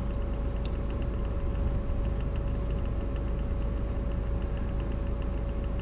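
Scania R420's diesel engine idling steadily with no load, heard from inside the cab, with a faint regular ticking over a steady hum.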